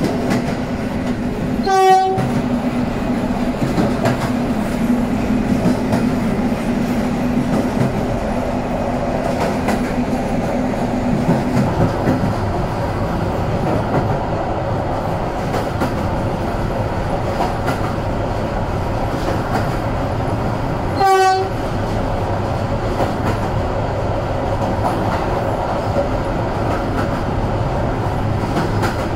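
Passenger train running along the track, a steady rumble of wheels on the rails heard from a carriage window behind the PKP Intercity locomotive. The locomotive's horn gives two short blasts, about two seconds in and again about twenty-one seconds in.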